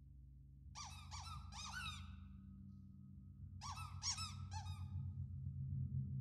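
Objects rubbed across a large tam-tam and picked up by a close microphone, giving quick groups of about four short squeaks that rise and fall in pitch. The groups come about a second in, at about three and a half seconds and near the end, over a low steady rumble.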